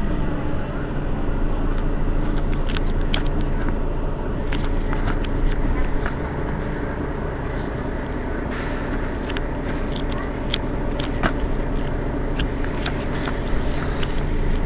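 Mercedes-Benz Citaro city bus idling at a stop, a steady low engine hum, with scattered sharp clicks over it.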